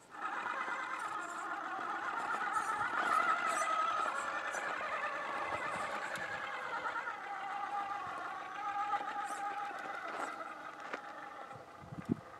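Axial SCX6 1/6-scale RC rock crawler's electric motor and gears whining as it climbs rock, the pitch rising and falling with the throttle, with scattered clicks and scrapes of tyres on stone.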